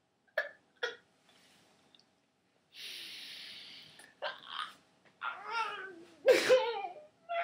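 A man's wordless vocal sounds: two short laughing yelps, a long breathy exhale, then wavering, whining cries that grow louder near the end.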